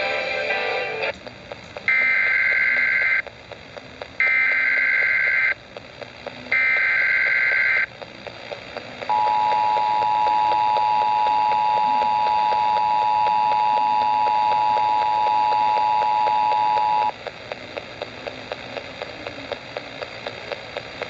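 Emergency Alert System activation on broadcast radio: music cuts off about a second in, then three SAME header data bursts, each a harsh buzzing screech of about a second and a quarter, then the two-tone attention signal (853 and 960 Hz) held steady for about eight seconds. It ends in faint crackling static. The tones open a severe thunderstorm warning.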